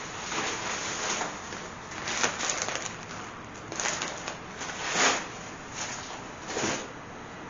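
Plastic grocery bags and packaging rustling and crinkling as shopping is unpacked, in irregular bursts, the loudest about five seconds in.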